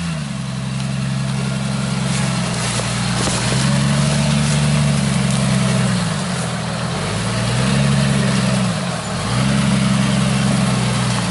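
Jeep Cherokee XJ engine running under load as the lifted 4x4 crawls off-road through brush, its revs rising and falling several times with the throttle.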